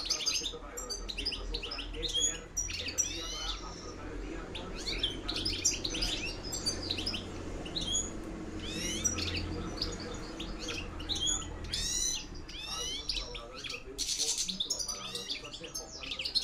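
A caged European goldfinch (jilguero) singing its rapid twittering song in the wild 'campero' style, with fast chirps and trills in runs broken by short pauses.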